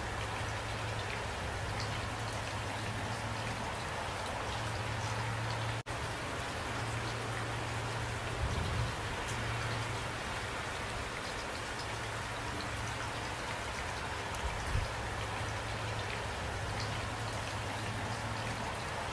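Steady rain falling, an even hiss of drops, with the sound cutting out for an instant about six seconds in.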